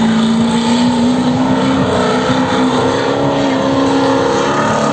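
Drift car's engine held at high revs through a slide, its pitch wavering slightly rather than climbing or dropping far.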